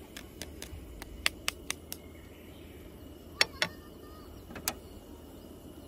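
Metal kitchen tongs clicking and clacking against a non-stick frying pan while stir-frying noodles. A run of quick light clicks comes in the first two seconds, then two louder clacks about three and a half seconds in and one more a second later, over a low steady background.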